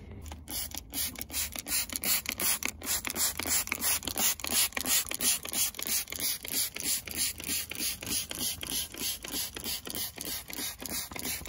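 Hand trigger spray bottle pumped quickly and repeatedly, about three sprays a second, misting diluted upholstery cleaner onto a fabric car seat.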